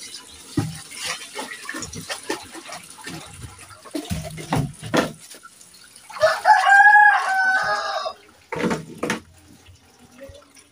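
A rooster crows once about six seconds in, a single call of about two seconds and the loudest sound here. Around it come short knocks and splashes as a plastic jerrycan and a metal pot of water are handled.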